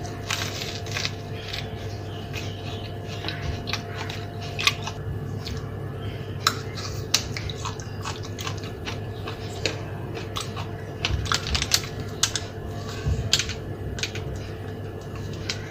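Eating sounds: scattered sharp clicks and crunches as food is handled, bitten and chewed, over a steady low hum.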